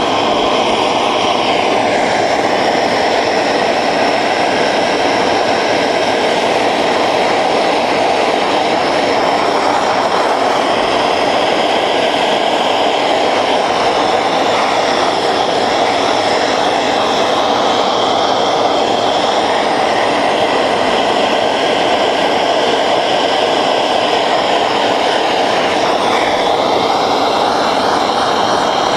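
Hand-held gas torch burning with a steady rushing flame, played on a copper boiler to heat the filler bushing for silver soldering. Its tone shifts slightly a couple of times as the flame moves over the work.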